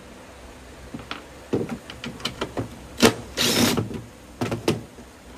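Cordless impact driver backing out a T40 Torx screw, with a short run of the driver about three and a half seconds in, among sharp clicks and knocks as the driver and screws are handled on the floor plate.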